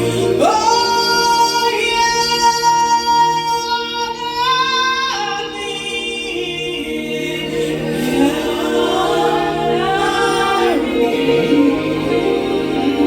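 Gospel worship singing: a solo voice holds a long high note, slides up and drops about five seconds in, then holds another long note over steady sustained accompaniment.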